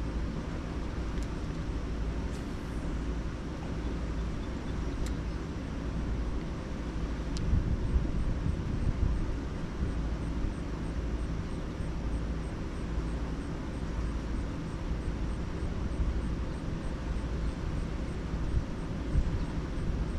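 Steady outdoor rushing noise with a heavy low rumble, and a few faint clicks in the first half. From about the middle on, a faint, quick, even ticking sits high above the rumble.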